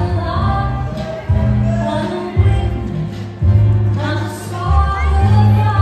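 Slow foxtrot dance music with a sung melody over long held bass notes.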